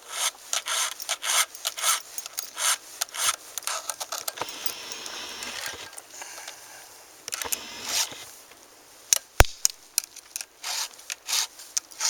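Chainsaw file rasping across the chain's cutter teeth in short strokes, about two a second, with a couple of pauses: the teeth are being sharpened by hand. A single sharp click comes late on.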